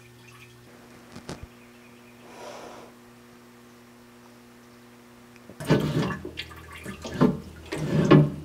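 Used band-saw coolant trickling faintly from a sheet-metal catch can through a funnel into a plastic jug. From about five and a half seconds in comes a loud, irregular run of clanks and splashes as coolant spills at the saw's base.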